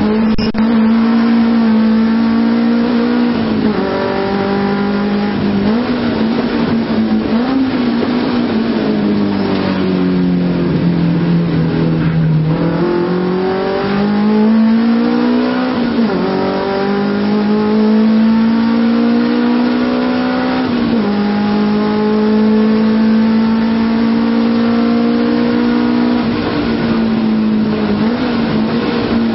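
Nissan Silvia's engine heard from inside the cabin, driven hard on track. It climbs steadily in pitch, then drops sharply, again and again, at each gear change or lift-off for a corner.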